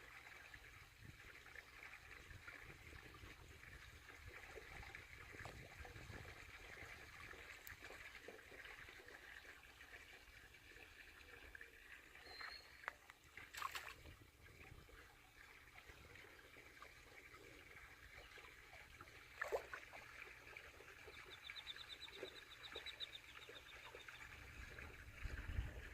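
Faint trickling water, with a few sharp clicks and a short, rapid, high chirp near the end.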